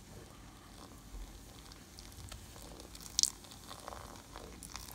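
Wooden spoon stirring beer into flour in an enamel pot, giving wet squishing and scraping as the batter is mixed, with one sharp click about three seconds in.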